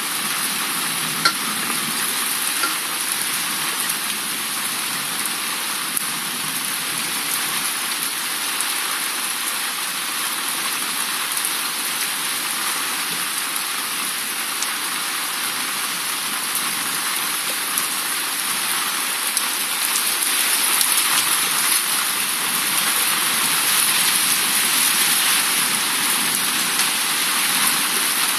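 Rain falling steadily, an even hiss with no let-up, growing a little louder about two-thirds of the way through.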